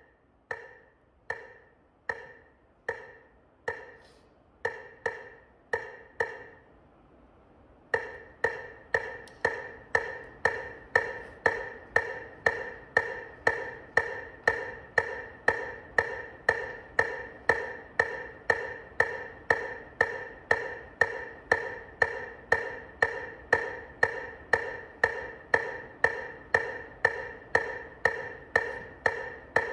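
A metronome clicking a wood-block-like tick. For the first few seconds the clicks are slower and uneven; after a short gap it settles into a steady beat of about two clicks a second.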